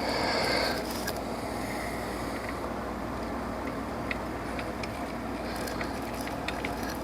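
Scattered light metallic clicks and taps of hand tools and a bolt being worked at the alternator bracket, a bolt that won't thread in, over a steady low hum.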